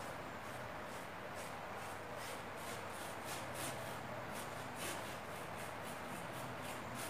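Paintbrush stroking black oil paint onto a plywood cabinet's plinth: short brushing swishes, about two a second, over a steady background hiss.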